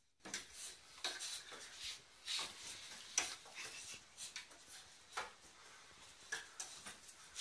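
Faint, irregular scuffs and clicks of a cat and a dog play-fighting under wooden chairs: paws and claws on the floor and small knocks against the chair legs.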